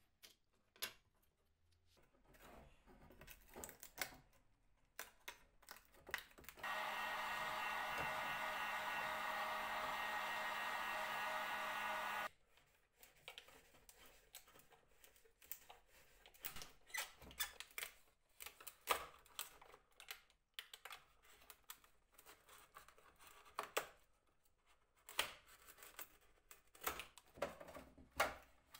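Scattered clicks and taps of hand work, with a small electric motor tool running steadily for about six seconds in the middle and then cutting off.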